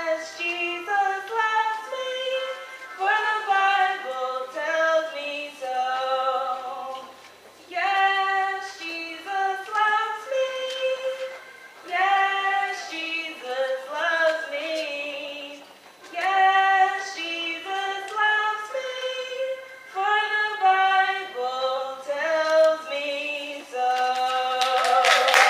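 A young woman singing solo into a handheld microphone, in sustained phrases a few seconds long with short breaks for breath. A sharp click comes at the very end.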